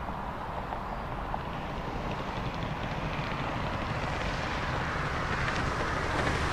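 Car driving: a steady low rumble with road noise that grows somewhat louder toward the end.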